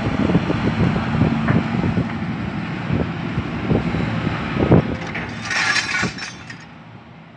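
Excavator diesel engine running steadily under repeated sharp metal knocks as its grapple works a load of scrap. About five and a half seconds in there is a brief noisy clatter as the grapple lets the scrap fall onto the pile. The sound then fades out.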